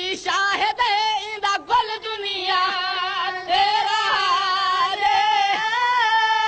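A man's high voice singing a Punjabi noha, a Shia mourning lament, in long held notes with heavy, wavering vibrato.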